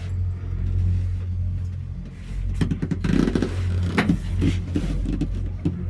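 Steady low hum of a cable car in motion, heard from inside the cabin, with a run of clanks and rattles from about two and a half seconds in and one more knock near the end.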